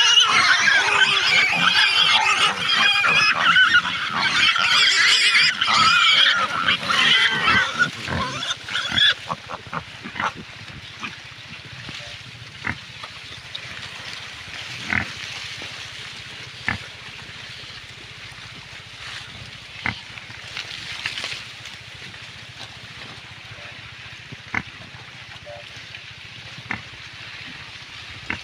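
Several pigs squealing loudly together for about the first nine seconds, then stopping abruptly. After that there are only scattered short knocks over a quiet background.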